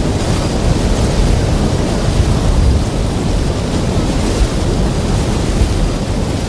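Extremely loud wind noise: a steady rush, heaviest in the deep low end, with small swells in strength.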